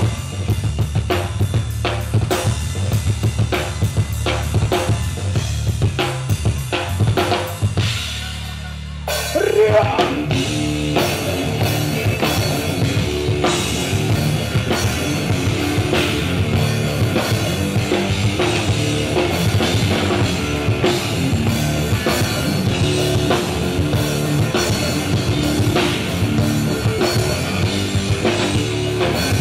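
Live rock band playing, led by a drum kit with bass drum and snare under bass guitar and electric guitar. About eight seconds in the drums drop out under a short held low note, then the whole band comes back in louder and fuller.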